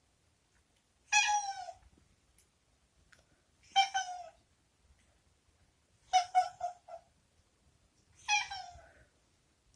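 Domestic cat meowing four times, each call ending in a downward slide in pitch, the third broken into a quick run of short stuttering notes. It is an insistent, somewhat unusual meow, made to be let out of a room it dislikes.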